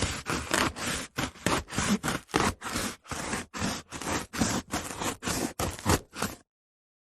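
Handsaw cutting through wood in quick back-and-forth strokes, about four a second, stopping abruptly about six seconds in.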